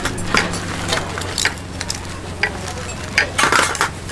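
Metal tongs clicking and clinking against a steel tray and wooden chopping board as pieces of crispy roast pork are picked up and moved, in irregular sharp knocks with a short scrape about three and a half seconds in. A steady low hum runs underneath.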